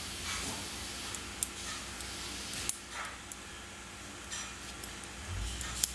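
Light metallic clicks and soft handling noises of small brass clock parts being worked with a tool in gloved fingers as a gear arbor is freed from its bearings in the frame plates. A few sharp ticks stand out: one about a second and a half in, one near the middle and one near the end.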